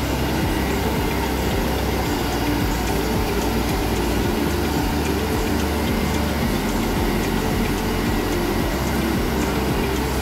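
Steady machinery noise of snack-production equipment running in a factory hall: a dense hum and rumble with a faint, regular ticking.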